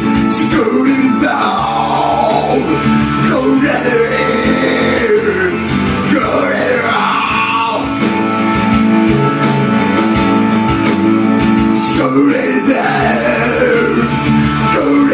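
A song: a singing voice carrying a melody over guitar-led band accompaniment with sustained chords.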